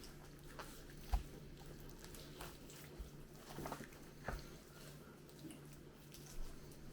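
Knife and hands working a raw, partly frozen whole chicken on a cutting board: scattered wet squishing and knife taps, with one sharper knock about a second in. A low steady hum sits underneath.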